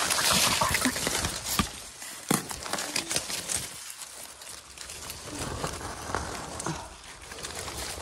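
A metal digging rod scraping and knocking in soil and dry leaf litter, with leaves rustling and scattered sharp clicks. It is loudest in the first second or so.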